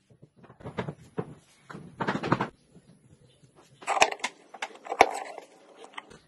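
Small hardwood blocks being handled and knocked against each other and a wooden workbench, in several short clusters of knocks and scrapes. Two sharp clicks stand out, about four and five seconds in, the second the loudest.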